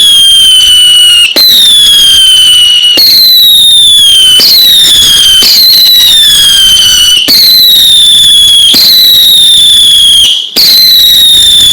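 Whistling fireworks going off one after another, each a loud, shrill whistle that falls slightly in pitch over about a second and a half before the next one starts.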